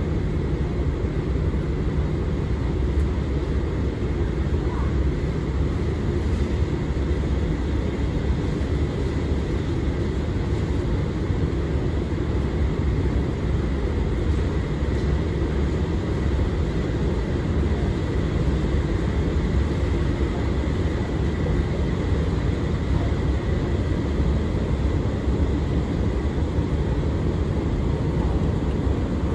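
A long escalator running: a steady low rumble with a faint, steady high whine above it.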